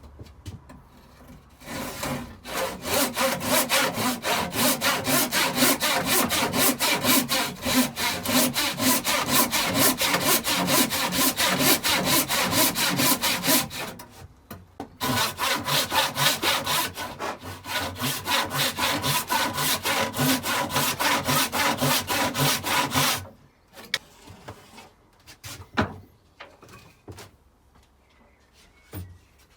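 Handsaw ripping a thick square timber along the grain in steady back-and-forth strokes. The sawing stops briefly about halfway through, then goes on, and ends some seconds before the close, leaving a few light knocks.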